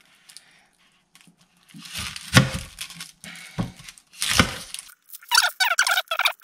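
Papery dry onion skin crackling and tearing as a kitchen knife catches and peels it off, with a couple of sharper knife scrapes. About five seconds in, a fast, high chattering sound starts.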